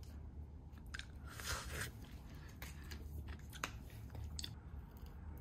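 Metal spoon scraping and crunching through icy ramune-soda shaved ice in a plastic cup: a few faint crunchy scrapes and light clicks, the longest about one and a half seconds in.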